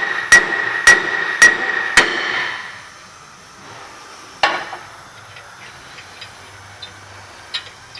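Hammer blows on a stuck cast-iron rear brake rotor of a 2003 Ford Expedition to knock it off the hub: four sharp strikes about half a second apart in the first two seconds, the rotor ringing with a high tone after each. A single softer knock follows a little past four seconds.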